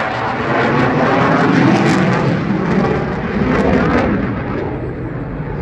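Eurofighter Typhoon fighter jet flying its display in afterburner (reheat): loud, continuous jet noise from its twin engines, easing slightly near the end.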